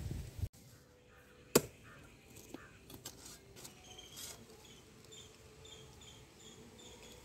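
A hoe blade knocks once sharply into hard soil, followed by a few faint taps. Then faint high chirping repeats about twice a second.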